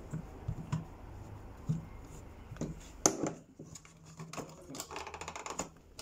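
Hands working a small screwdriver and handling a long gun's parts on a table: scattered small clicks and scrapes, a sharper knock about halfway, and a quick run of clicks near the end.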